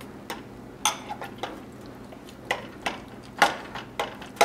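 Serving utensil clinking and scraping against a glass baking dish while cutting and lifting out portions of lasagna: a series of sharp, irregular clicks and knocks, the loudest about three and a half seconds in and at the end.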